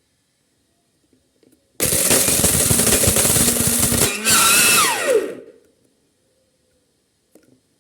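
Electric kitchen grinder running hard for about three and a half seconds, with a brief break partway through, then its motor winding down with a falling whine once switched off.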